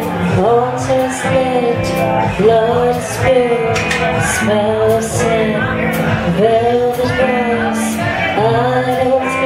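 Doom metal band playing live on electric guitars, bass and drums, with cymbal strokes cutting through. A woman sings sliding, drawn-out phrases over the band.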